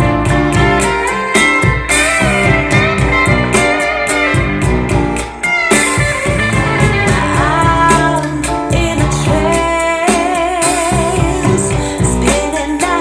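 A song with guitar, a steady drum beat and a sung vocal line.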